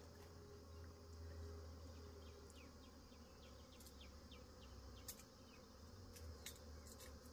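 Near silence with faint insect sounds: a bee buzzing for a second or two near the nest, and a run of faint short chirps repeating about twice a second.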